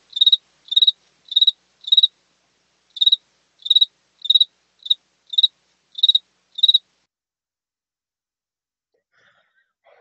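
Field cricket chirping: about a dozen short, high chirps, roughly one every half second, that stop about seven seconds in.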